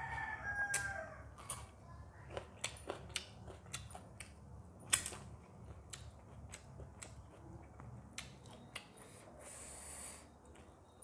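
A rooster crowing, the call trailing off about a second in. Then sharp wet clicks and smacks of eating by hand, with a short hiss near the end.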